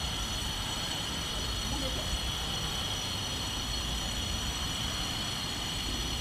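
Steady drone of background machinery: a low hum under a hiss, with several thin, high, whining tones that do not change.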